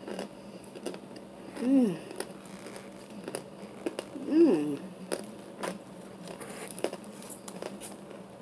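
Crunchy bites and crumbling of a hard chunk of baked starch, a quick run of short, crisp cracks. Two brief hums of the voice come about two seconds and four and a half seconds in.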